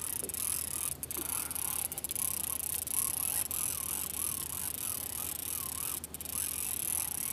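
Conventional trolling reel being cranked steadily by hand, winding in lead core line against the pull of a hooked fish.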